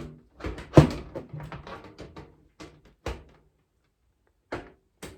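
Knocks and clatter of a PC case's back panel being fitted back on. The loudest knock comes about a second in, with two more sharp knocks later.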